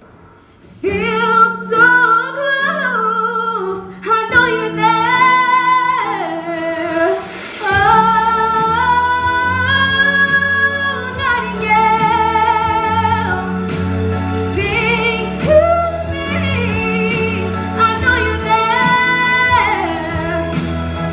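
A female vocalist sings a slow pop ballad over instrumental accompaniment, holding long notes with vibrato. The voice comes in about a second in after a brief hush, and a low bass part joins after several seconds.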